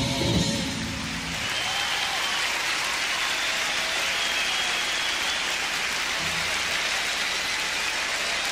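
A band's last chord stops about a second and a half in, then a large audience applauds steadily.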